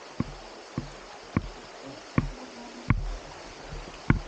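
Irregular sharp knocks and bumps, about six in four seconds, from hikers clambering over rocks and dead branches with the camera, over a steady hiss of running water.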